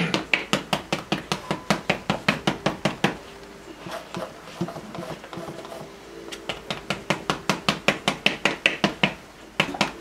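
Stiff oil-painting brush stippled against a stretched canvas on an easel, dabbing in grass: a fast run of taps, about six a second, that thins out about three seconds in and picks up again a few seconds later.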